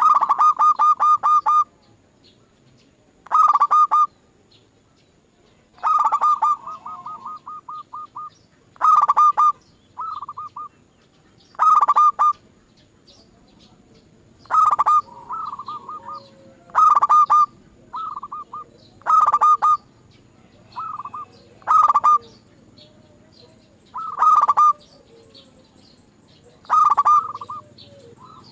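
Zebra doves (perkutut) cooing: short phrases of rapid, evenly pulsed notes, repeated about every two to three seconds.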